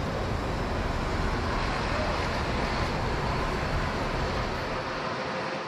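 City road traffic noise: a steady hum of passing vehicles, including a double-decker bus. The low engine sound drops away near the end.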